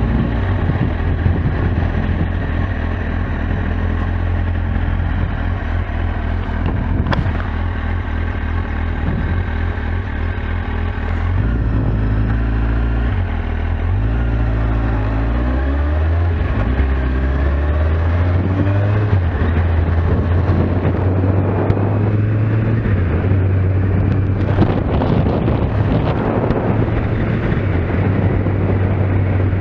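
Kawasaki Z750S's inline-four engine running as the motorcycle is ridden. Around the middle the engine note rises and drops in steps for several seconds, then settles to a steady run again.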